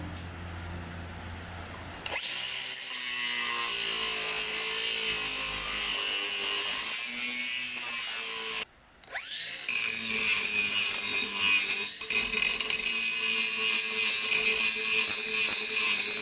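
Angle grinder working on steel held in a vise. It spins up about two seconds in, cuts out briefly near the middle, spins back up and runs on steadily against the metal.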